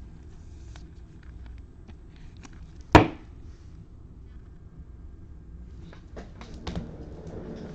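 Trading cards handled and slid into plastic sleeves: faint rustles and light clicks, with one sharp knock on the tabletop about three seconds in and a few more ticks and a brief rustle near the end.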